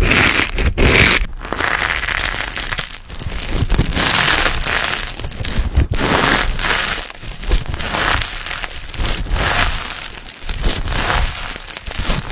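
Crunchy slime packed with clear plastic pieces and glitter being squeezed and kneaded by hand, crunching and crackling in uneven surges.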